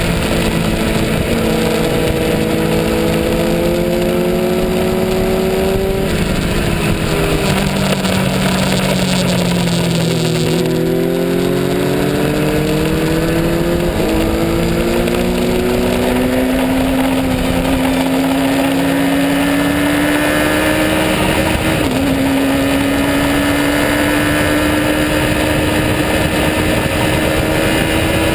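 Racing motorcycle engine heard from on board the bike, running hard at speed over a steady rush of wind. Its pitch climbs, falls as the bike slows about six to ten seconds in, then climbs steadily again with a brief dip about 22 seconds in.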